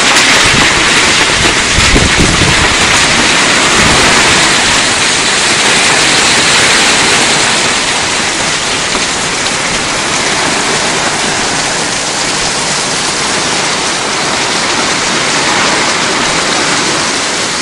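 Heavy rain pouring down in a steady, loud hiss during a thunderstorm, with a low rumble in the first few seconds. The downpour eases slightly after about eight seconds.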